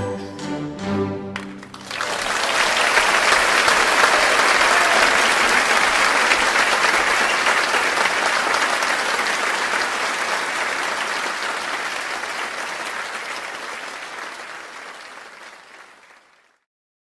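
A choir's last sung chord dies away, then an audience applauds for about fourteen seconds, the clapping slowly fading out near the end.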